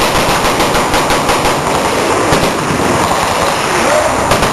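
Fully automatic gunfire: a rapid burst of shots in the first second or so, with a few more shots later, over a dense steady rush of range noise.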